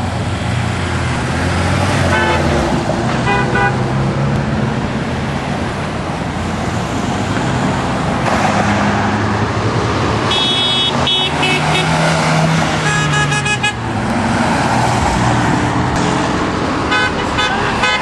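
Road traffic passing steadily, with car horns honking several times: short toots about two and three seconds in, a run of honks from about ten to thirteen and a half seconds, and more near the end.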